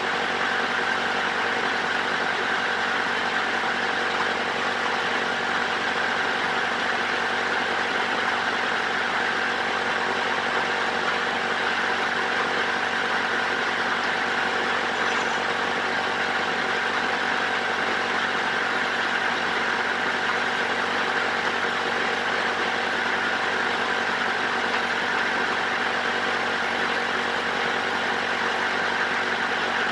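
Motor running at a steady, unchanging speed: a continuous hum with several fixed tones over a hiss.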